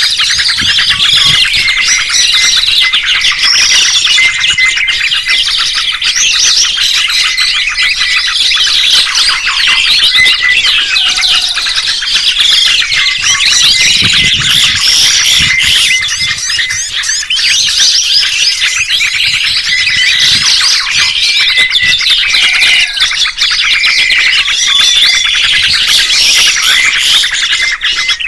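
Songbirds chirping and twittering in a dense, continuous chorus of fast high notes, with short gliding whistles recurring every few seconds: recorded birdsong of the kind played to train pet songbirds.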